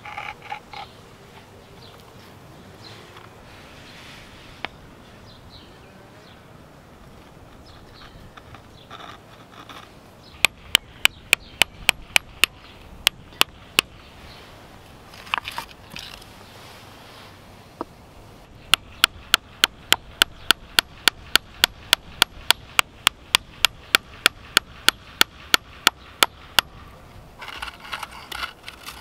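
Hammer tapping along a flat piece of natural stone veneer resting on a wooden stump, breaking it to size. A run of about a dozen sharp taps comes first, then after a pause a longer run of about thirty quick, even taps, roughly four a second.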